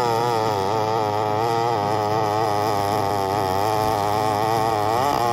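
A small engine running without a break, its pitch wavering up and down several times a second over a steady low hum.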